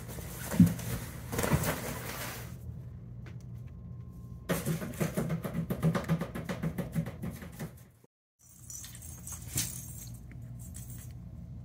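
Kittens scuffling in and around a collapsible fabric cat tunnel: bursts of fabric rustling and clicks from play. The sound cuts out for a moment about eight seconds in, and after that only faint hiss and a single click remain.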